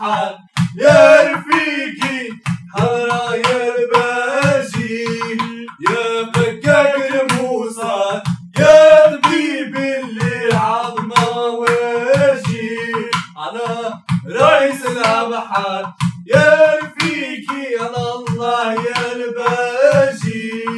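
Arabic devotional song sung to a hand-drum beat, the voice phrased in lines of a few seconds over a steady held low note, with regular sharp strikes from a clay pot drum.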